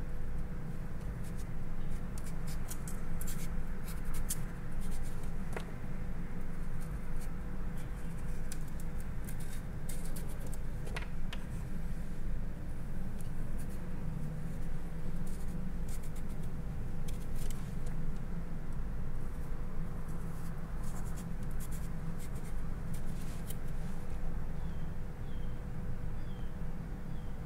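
Long sushi knife slicing and carving a raw carrot held in the hand: clusters of crisp, quick cutting clicks as the blade shaves through the hard carrot, over a steady low hum.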